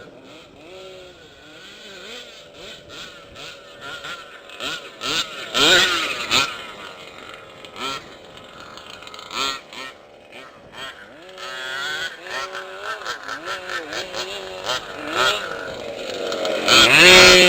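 Small two-stroke engine of a gas-powered large-scale RC off-road car revving up and down over and over, its pitch rising and falling with the throttle, loudest near the end.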